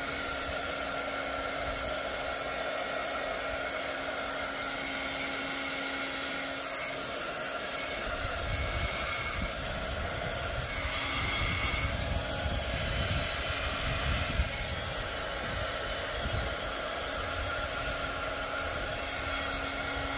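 Small handheld craft heat gun running steadily, its fan blowing hot air with a steady hiss and whine. From about eight seconds in, wind buffets the microphone with an uneven low rumble.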